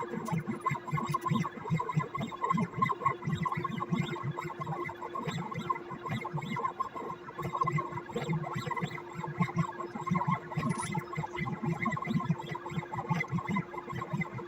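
Stepper motors of a CNC pen plotter driving the pen, a steady whine with a stuttering low buzz that changes in short irregular spurts as the moves change.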